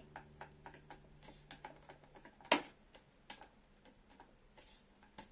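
Small dry wooden clicks and knocks from a hand-cut dovetail joint being pushed together and worked apart by hand during a dry fit, with one louder knock about halfway through. Faint guitar music fades out in the first two seconds.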